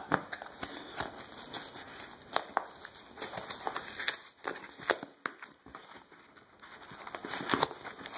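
A small cardboard Priority Mail box being handled and opened by hand: rustling and crinkling of cardboard and packing paper with scattered sharp clicks, quieter in the middle and picking up again near the end.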